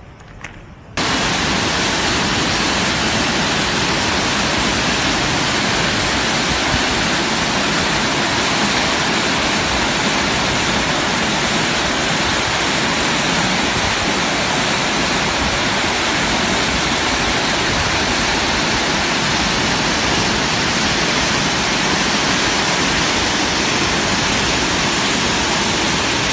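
River water pouring over a stepped concrete weir and running through rapids: a loud, steady rush that starts suddenly about a second in.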